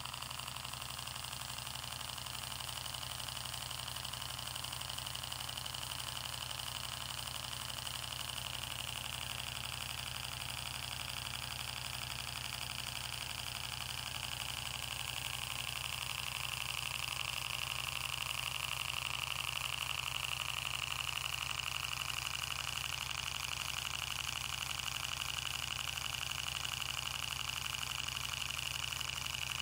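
Twin-cylinder steam engine running steadily: a fast, even beat over a continuous hiss, growing slightly louder in the second half.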